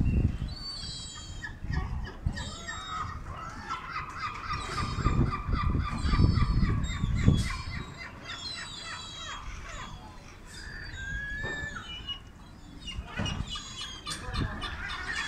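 Gulls calling: a long run of rapid, repeated calls in the middle, a single rising call later, and high chirping calls throughout. Under them is a low rumbling noise, loudest about seven seconds in.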